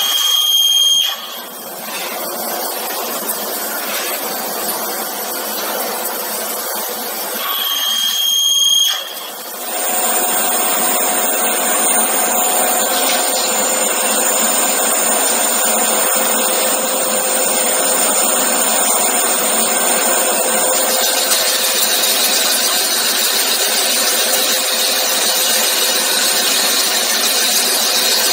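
Five-axis CNC machining center cutting metal, a steady machining noise. About ten seconds in it changes to vertical turning, the workpiece spinning on the rotary table under a long boring tool, with a steady whine over the cutting noise.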